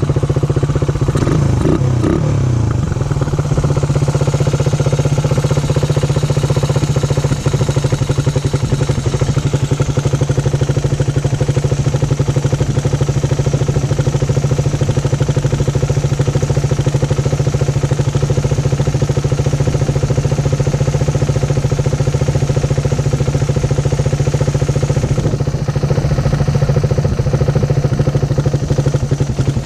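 Suzuki Raider 150's single-cylinder four-stroke engine idling on a freshly fitted Koso EVO 30mm flat-slide carburettor while its idle and air-mixture screws are being set. The engine speed shifts briefly about two seconds in, then holds a steady idle.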